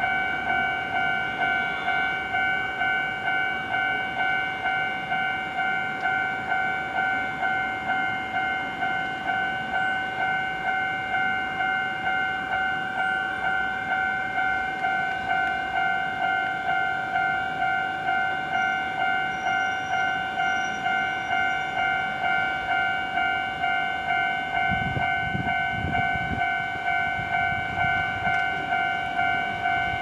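Japanese electronic level-crossing bell ringing steadily in an even, rapid strike pattern, about two strikes a second, signalling that the tramway crossing is closed for an approaching tram. A low rumble joins in about 25 seconds in.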